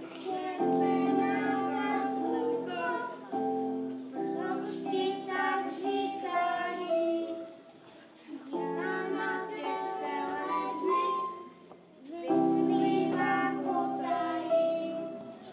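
Children singing a song over instrumental accompaniment with held chords, in phrases with short breaks about eight and twelve seconds in.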